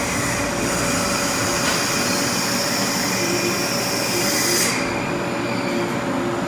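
Metalworking machine tool running steadily, a dense mechanical noise with several steady whines in it. A high hiss over the top cuts off about four and a half seconds in.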